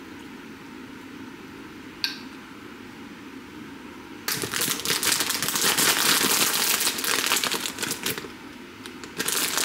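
Crinkling and rustling as something is handled, in two stretches of a few seconds each, after a single sharp click about two seconds in.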